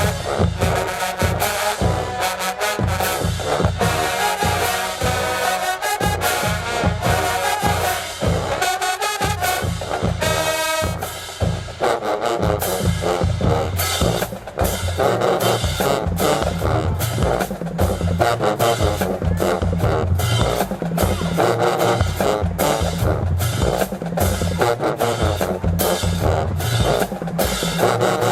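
HBCU marching band playing: brass over a drumline's snare and bass drums. About ten seconds in it holds a chord, then the full band comes back in with a steady drum beat.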